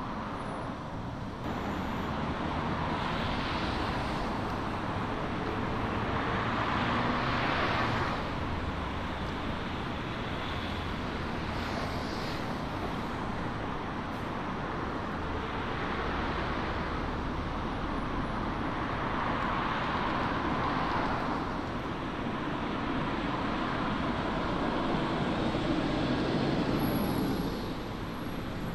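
Road traffic on a city street: a steady wash of tyre and engine noise that swells several times as vehicles pass.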